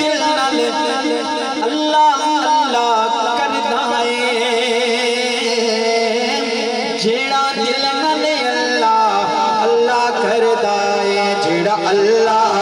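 A man singing a devotional kalam in a long, wavering melodic line without clear words, over a steady sustained note.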